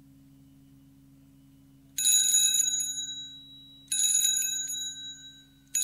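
Telephone ringing: three bright bell-like rings about two seconds apart, starting about two seconds in, each ringing on and fading.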